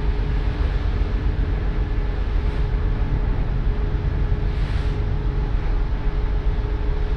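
Steady hum and rumble of a passenger ferry under way, with wind buffeting the microphone on the open deck. There is a brief louder hiss about four and a half seconds in.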